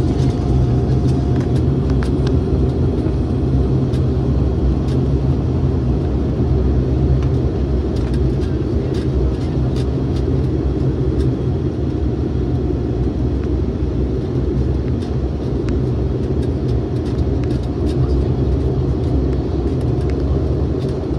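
Bombardier Q400's Pratt & Whitney PW150A turboprop and six-bladed propeller running steadily while the aircraft taxis, heard inside the cabin as a steady low drone.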